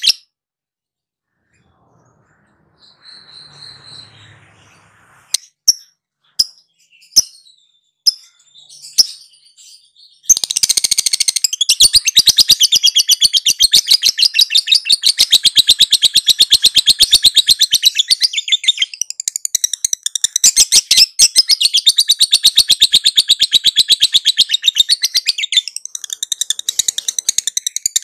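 Lovebird 'ngekek': a few separate sharp chirps, then about ten seconds in the bird breaks into a long, rapid, unbroken high chattering trill that runs on with only brief dips. This is the long-duration ngekek valued in contest lovebirds.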